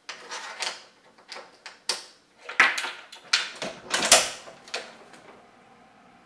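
Metal door chain lock being slid along its track and unhooked: a run of sharp metallic clicks and rattles that stops about five seconds in.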